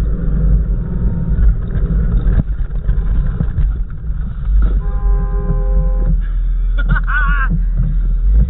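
Off-road 4x4 vehicle engine running with a heavy, steady rumble. About five seconds in, a steady horn-like tone sounds for about a second, and shortly after a high, wavering voice cries out.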